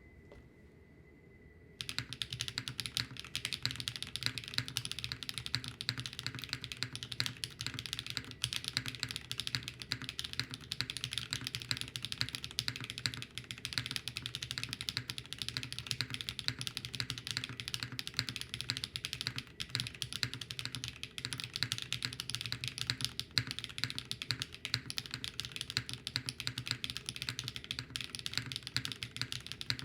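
Mechanical keyboard with HMX Cthulhu linear switches (polycarbonate top housing, fiberglass-filled nylon bottom housing) typed on quickly and continuously, with a clacky keystroke sound. The typing starts about two seconds in, after a faint steady high tone.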